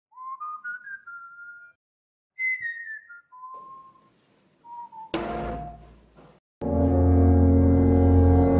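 A person whistling a slow, falling tune in short phrases of single clear notes. About five seconds in comes a sudden loud hit that rings and fades. Then a loud, deep, sustained musical drone sets in.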